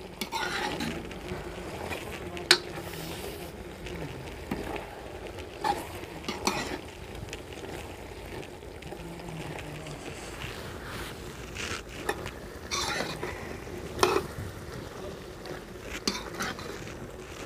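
Metal ladle stirring and scraping potato-and-eggplant curry in a steel kadai, with a sharp clink of metal on metal now and then. Under it the curry sizzles steadily as it simmers in the juice the eggplants have released.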